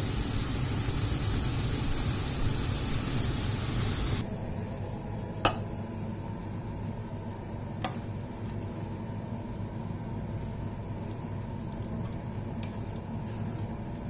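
Sliced doner kebab meat sizzling and being stirred in a pan, cutting off suddenly about four seconds in. After that a low steady hum, with a sharp clink of dishes or utensils about a second and a half later and a softer one a few seconds after.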